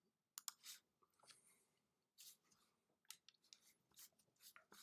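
Near silence, with a few faint clicks and brief rustles scattered through it.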